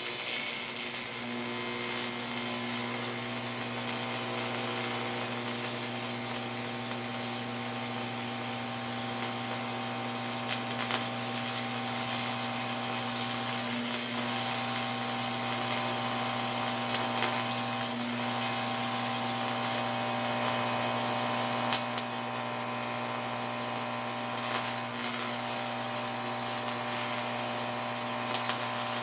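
TIG welding arc burning continuously, a steady electrical buzz with a hiss over it, with a few faint clicks, as filler rod is fed into a weld joining a fuel pump hanger rod to its flange.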